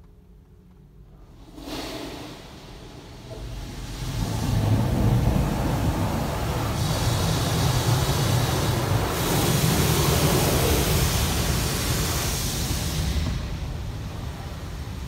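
Automatic car wash water spray hitting the car, heard from inside the cabin, rinsing the foam off the windshield. A low hum first, then the water noise builds about two seconds in, runs loud and steady from about four seconds, and eases near the end.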